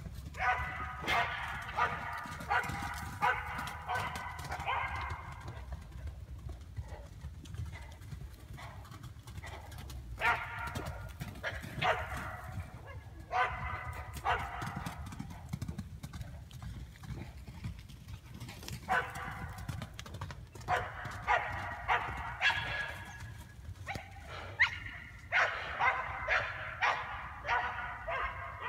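A dog barking in four bouts of quick, repeated barks over a steady low rumble.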